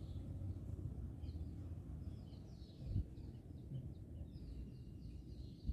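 Faint birds chirping in the background over a low, steady rumble of room noise, with one soft thump about three seconds in.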